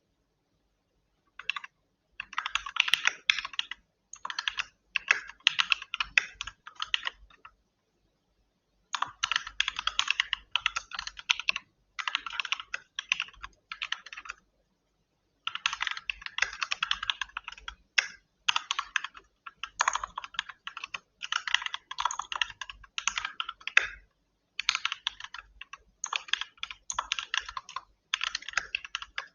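Fast typing on a keyboard: quick runs of keystroke clicks a few seconds long, broken by short pauses about 8, 14 and 24 seconds in.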